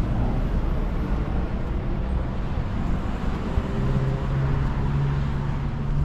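Street traffic: a continuous road rumble, with a vehicle engine's steady low hum coming in about halfway through.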